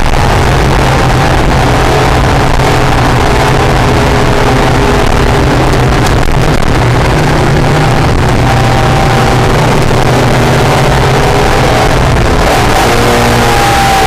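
Acura NSX's V6 engine running hard at fairly steady revs, loud throughout, over a steady rush of road and wind noise; a higher tone dips slightly near the end.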